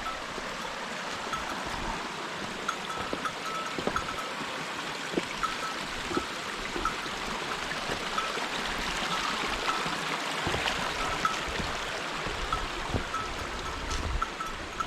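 Flowing mountain water rushing steadily, a constant even noise.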